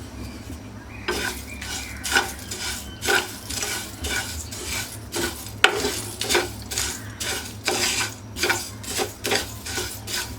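A utensil stirring and scraping a pan of dry whole spices (coriander seeds, cumin, fennel, cloves, cardamom, black pepper) mixed with spice powders, as they are lightly dry-roasted on the gas. The strokes are rhythmic, about two a second, starting about a second in.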